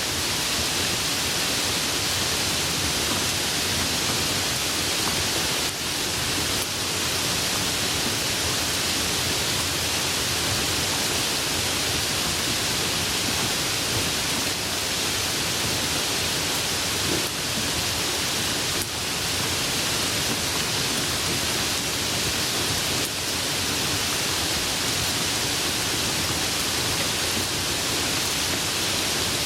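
Light rain falling as a steady, even hiss.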